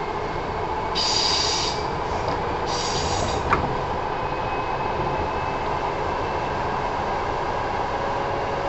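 Running sound of a Kintetsu 1000 series electric train heard from inside the car: a steady rumble of the train in motion, with two short bursts of high-pitched noise about a second and three seconds in and a sharp click just after the second.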